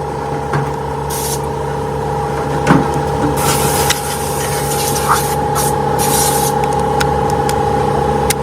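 Workshop machinery humming steadily, with short bursts of hissing and a few sharp metallic clicks, the loudest about a third of the way in.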